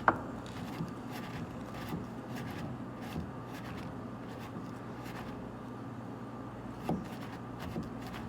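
A sharp click right at the start, then scattered light clicks, rubbing and a duller knock near the end, from hand work on car door parts, over a steady low hum.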